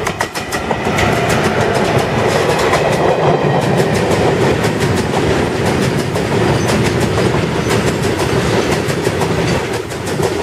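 Electric freight locomotive and its rake of petrol tank wagons rolling past close by. The wheels click rhythmically over the rail joints under a steady rumble.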